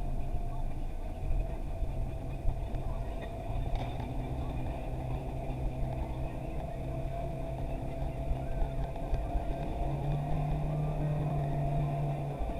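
Off-road vehicle engine running steadily, its pitch stepping up for about two seconds near the end.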